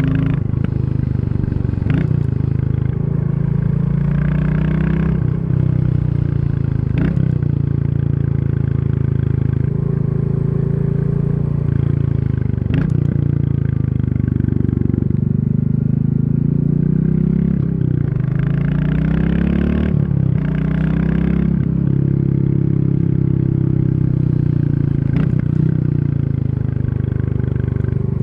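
Royal Enfield Classic 350's single-cylinder engine running under way. Its note climbs and then drops several times as the bike accelerates and changes gear, with a short break in the sound every few seconds.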